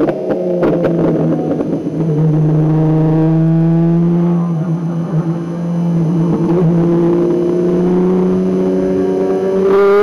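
Ferrari 575 GTC race car's V12 engine running hard on track, its pitch climbing slowly, with a brief dip about halfway through. It climbs again and is loudest near the end.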